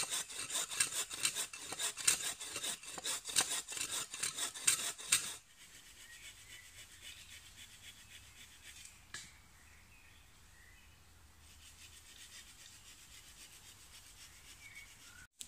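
Hand saw cutting through wood in quick, even back-and-forth strokes, which stop abruptly about five seconds in. After that, a quiet woodland background with faint bird calls.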